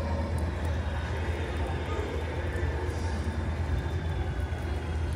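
Steady rain ambience: an even hiss of falling rain over a constant low hum.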